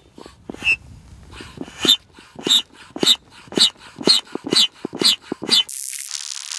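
Foot bellows pump being stepped on repeatedly to inflate an inflatable kayak's chamber, each stroke a short squeaky wheeze of air, about two strokes a second and quickening toward the end. A steady hiss takes over near the end.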